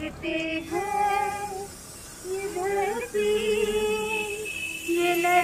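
A woman's voice singing a slow melody in long held notes.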